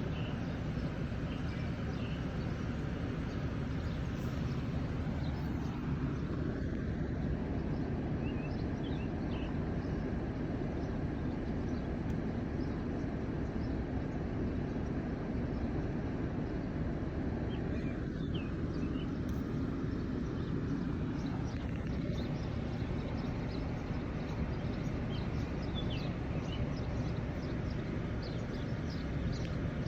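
Steady low rumbling background noise, with short high bird chirps here and there.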